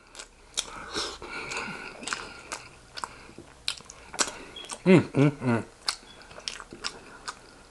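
Close-miked eating sounds: a person chewing and biting into a sloppy joe sandwich, with irregular wet mouth clicks and smacks. A brief voice sound comes about five seconds in.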